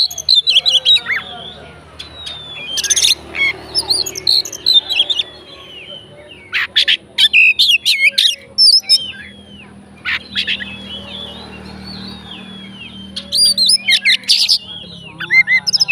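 Oriental magpie-robin (kacer) singing loudly: a varied song of whistled glides and rapid chattering notes, in bursts separated by short pauses, packed with songs mimicked from other birds.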